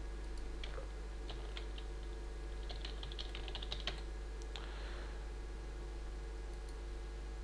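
Computer keyboard keys clicking as a word is typed: a few separate keystrokes, then a quick run of them near the middle, over a steady low electrical hum.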